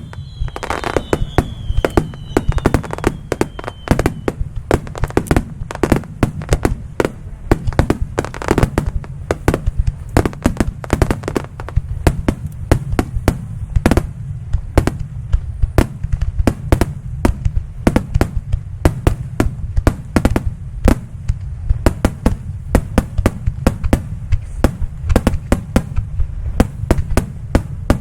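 Fireworks display in a rapid, continuous barrage: booming bursts and sharp cracks, several a second, over a steady low rumble. A few falling whistles are heard in the first few seconds.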